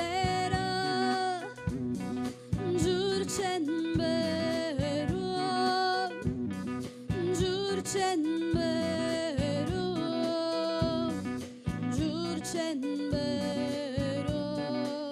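A live band playing a song: a woman's voice sings long held notes that slide between pitches, over electric guitar, bass guitar, keyboard and drum kit.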